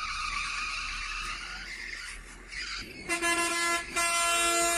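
Steady vehicle engine and road noise, then a loud vehicle horn sounds about three seconds in: a short blast followed by a longer one held to the end.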